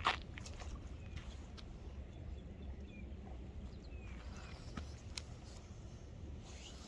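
Low wind rumble with scattered clicks and taps from a fishing line and soft-plastic grub lure being handled, starting with one sharp knock. A couple of faint short chirps come in about halfway through.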